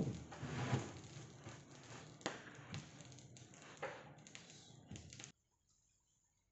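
Irregular light knocks, taps and rustling from hand work on wooden cabinet panels, with no power tool running. The sound cuts off abruptly about five seconds in.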